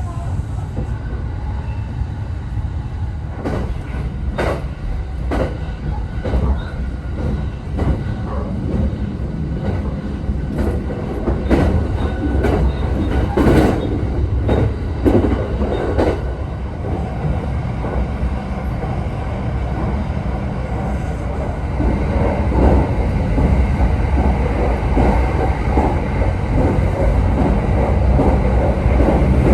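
Train running on rails: a steady low rumble with a series of sharp wheel clacks over rail joints, growing louder near the end.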